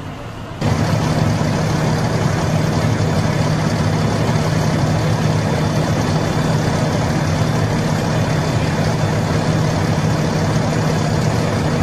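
A heavy engine idling steadily with a loud, constant low hum. It cuts in abruptly about half a second in.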